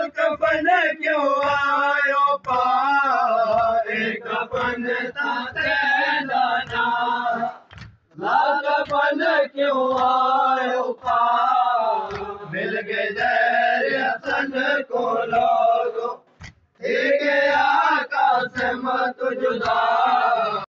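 Men chanting a noha, the Shia mourning lament, led by a reciter, in lines broken by short pauses about 8 and 16 seconds in. Short thuds of matam, the mourners beating their chests, fall throughout.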